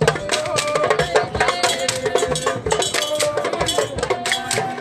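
Live street drumming: hand drums struck in a fast, dense rhythm, with a melodic line carried over the beat.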